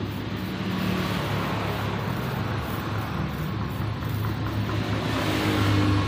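Steady low mechanical hum with a constant rushing noise, like a motor running.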